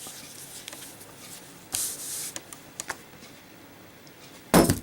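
Zippo lighter handled with a few light clicks and a brief rustle, then dropped: one loud, sharp metallic clack with a short ring near the end.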